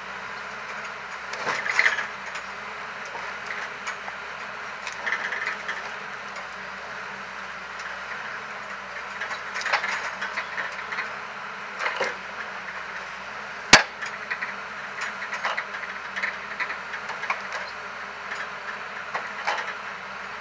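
Logset 5FT GT forwarder's diesel engine running steadily as its hydraulic crane unloads logs onto a pile, with logs knocking and clattering against each other now and then. One sharp crack of wood striking wood a little past the middle is the loudest sound.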